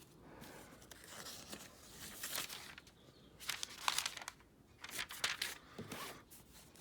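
Irregular rustling and crinkling with scattered light clicks, as of material being handled and shifted about, in a few short bursts.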